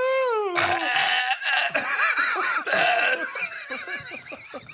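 A long held vocal wail ends with a falling pitch about half a second in, then a group bursts into loud laughter.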